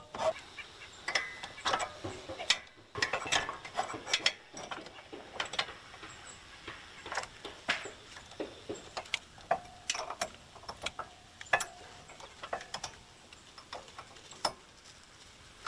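Irregular metallic clinks, clicks and knocks of steel parts being handled as a pin is worked into the steel log-lifter bracket on the sawmill frame, with a couple of brief metal rings.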